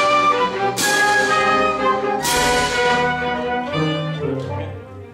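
Orchestra with violins playing loud sustained chords, with strong accented attacks about a second in and again just after two seconds. The chords die away near the end.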